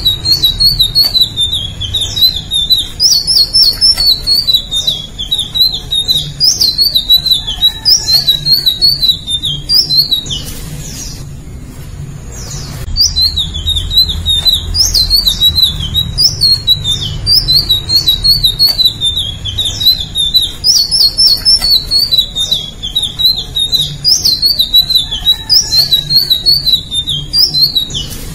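Indigo flycatcher singing: rapid, high, twittering phrases run one after another, with a pause of about two seconds roughly a third of the way in.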